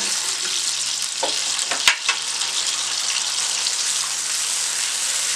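Milk and ghee boiling and sizzling in a nonstick wok as sugar is poured in and stirred with a spatula. A couple of sharp knocks against the pan break the steady hiss, the loudest about two seconds in.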